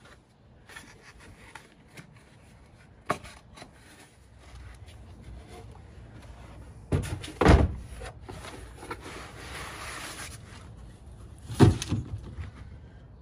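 Cardboard boxes and electronics being set down and shoved into a pickup truck bed: a knock about three seconds in, heavy thumps about seven seconds in and again near the end, with a stretch of scraping in between.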